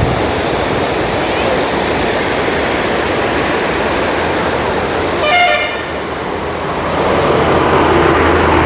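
Steady rush of a waterfall cascading down rock steps, with a single short vehicle horn toot about five seconds in and road traffic growing louder near the end.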